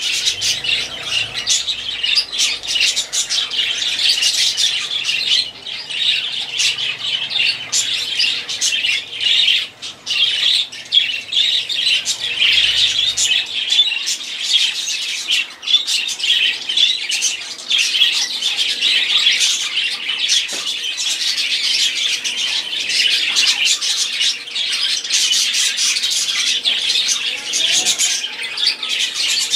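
Budgerigars chattering without a break, many short, high chirps and calls overlapping.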